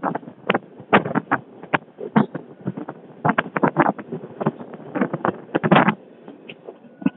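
Passenger train running around a curve, heard from an open coach doorway: irregular clattering and knocking from the wheels and coaches, with a couple of louder bursts of clatter.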